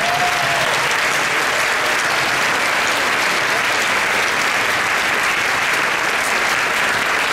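Large audience applauding steadily, a dense, even clapping that fills the hall.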